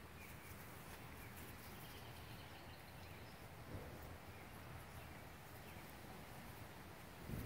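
Quiet outdoor ambience: a steady low background hum with faint, scattered bird chirps, and one soft bump about three and a half seconds in.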